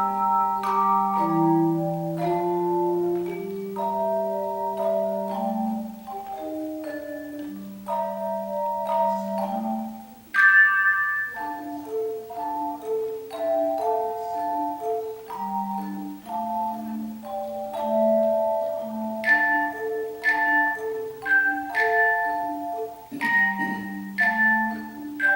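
A tone chime ensemble playing a melody over chords: handheld tuned metal chimes struck one after another, each note ringing on and overlapping the next. About ten seconds in the sound briefly drops away, then a loud high chord rings out.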